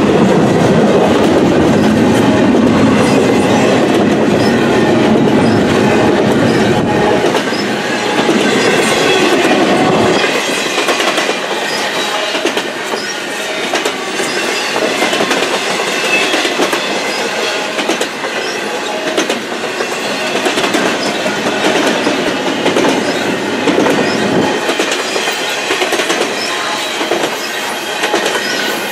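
Double-stack intermodal container well cars rolling past close by, their steel wheels clattering over the rail joints with some high wheel squeal. A deep rumble underneath dies away after about ten seconds.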